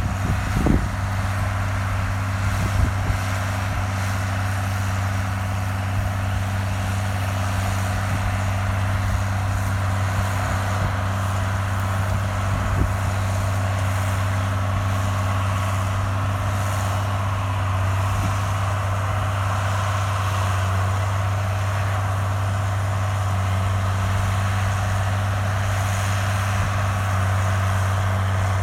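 John Deere 4440's six-cylinder turbo diesel running steadily under load, pulling a John Deere 530 round baler, with an even low drone and a few knocks right at the start.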